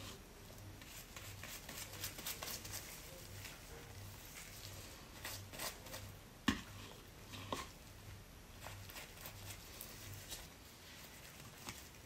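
Faint handling sounds of hair dye being applied: a tint brush scraping and dabbing dye in a bowl and working it into the hair with gloved hands, soft rustles and scrapes throughout. A sharper click about six and a half seconds in.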